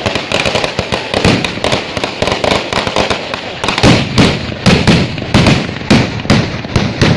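A string of firecrackers going off in a dense, unbroken run of sharp cracks and bangs. From about four seconds in, heavier blasts come two or three a second.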